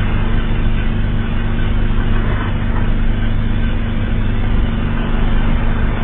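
Loud, unchanging emergency-alert alarm drone: a steady low hum with harsh, rough noise over it.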